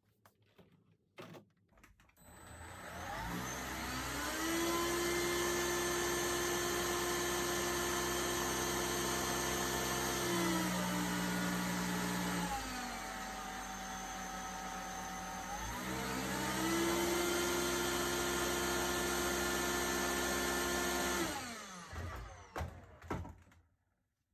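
Electrolux UltraPower cordless vacuum cleaner's motor spinning up to a steady high whine, dropping to a lower speed for a few seconds, rising back to full speed, then winding down and stopping, with a few clicks of the switch and handling. It is the test run of the cleaner after its PCB was replaced.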